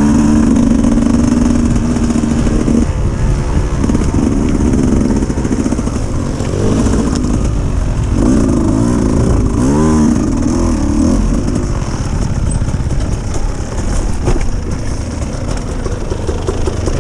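Dirt bike engine running and revving, its pitch steady at first, then climbing and dropping quickly a couple of times around ten seconds in.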